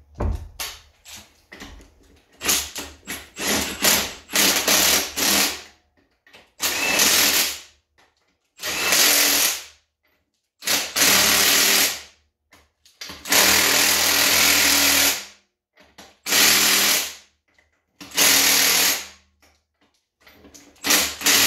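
A cordless power tool running lug nuts onto an ATV wheel hub in repeated short bursts, about nine runs of one to two seconds each with brief pauses between them.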